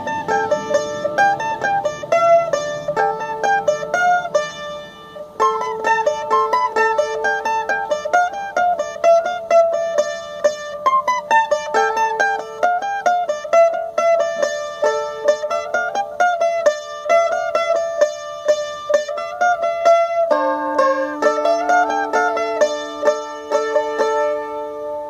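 Solo mandolin played with quick picked notes, a melody over ringing open-string notes, with a lower ringing note joining about 20 seconds in.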